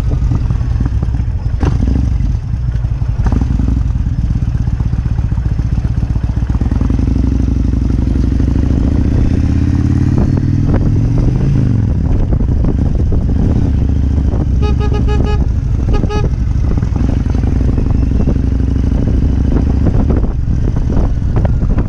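Kawasaki Vulcan 1600 Classic's V-twin engine running steadily under way. Twice, about two-thirds of the way through, a short pulsing beep sounds.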